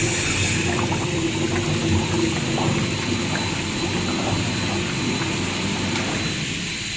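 Industrial paddle mixer running: its motor and paddle shaft turning in the stainless-steel trough make a steady churning rumble with a constant hum. The low rumble weakens near the end.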